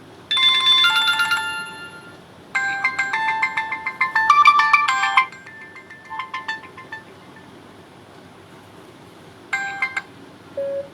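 Jio Phone system ringtones playing one after another: a short bright electronic chime just after the start, then a longer run of quick electronic notes from about two and a half to five seconds in that trails into softer notes, and another short chime near the end.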